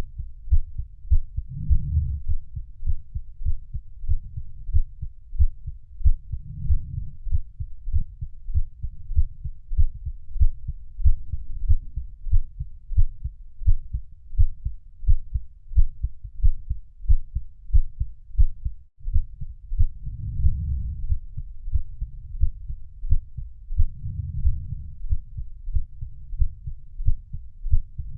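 Heartbeat sounds: a steady, evenly repeating low thumping pulse. The beat cuts out for an instant about nineteen seconds in.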